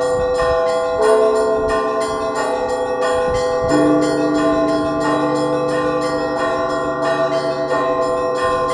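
Russian church bells rung by a bell-ringer in a matins peal: small bells struck in a quick, steady pattern over the hum of larger bells. Deeper bells are struck about a second in and again near four seconds.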